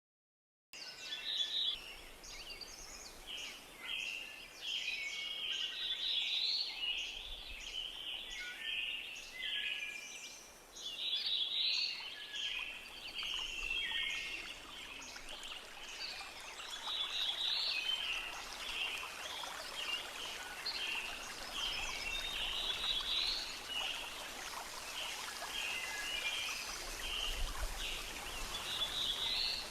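Many songbirds calling and singing together in a dense chorus of short chirps and trills, over a steady hiss.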